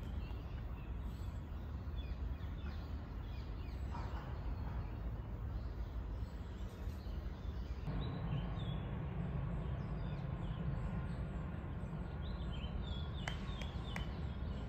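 Birds chirping here and there over a steady low rumble; the rumble grows a little louder about halfway through, and the chirps come thickest near the end.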